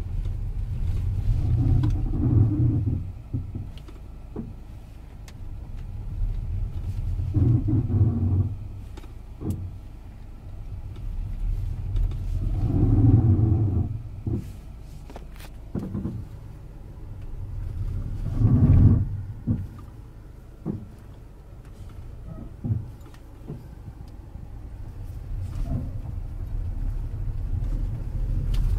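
Abnormal noise from a Luxgen U6's brakes: a low groan, heard four times for a second or two each, over the car's steady running.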